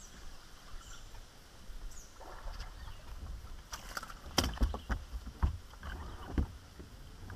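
Sharp knocks and low thumps on a fishing boat's deck, with water sounds from the boat, as an angler sets the hook on a fish that took a topwater frog and fights it. The loudest knocks come in a cluster in the second half.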